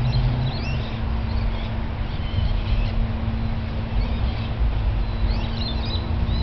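Steady low drone of a distant Cessna 172 Skyhawk's piston engine and propeller, with small birds chirping several times over it and wind rumbling on the microphone.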